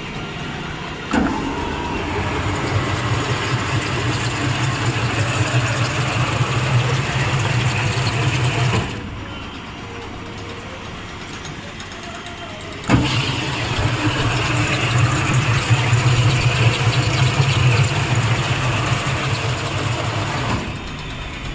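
20-litre jar washing machine running twice: it starts with a click about a second in, runs with a steady low motor hum and hiss, cuts off after about eight seconds, then starts again with a click a few seconds later and runs about as long again.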